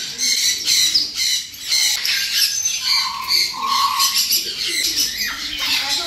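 Many parrots screeching and squawking at once, a dense run of harsh, high overlapping calls, with two short lower notes about halfway through.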